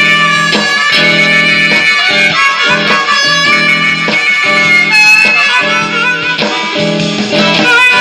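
Hohner Marine Band diatonic harmonica playing a blues line of held, bending notes over a rhythmic strummed guitar accompaniment.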